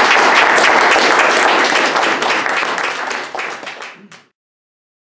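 Audience applauding, a dense patter of many hands clapping that tapers off and cuts off abruptly a little after four seconds in.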